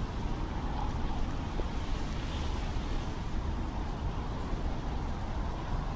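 Wind buffeting the microphone as a steady low rumble, over a fainter hiss of wind through the rushes.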